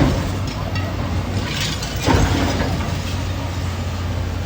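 Engine running steadily with a low hum, with a short loud noise about two seconds in.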